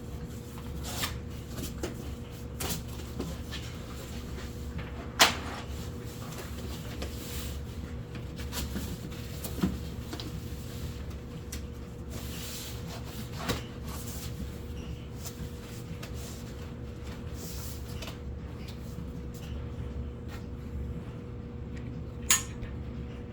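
Scattered knocks and handling sounds over a steady hum, with sharper knocks about five, thirteen and twenty-two seconds in.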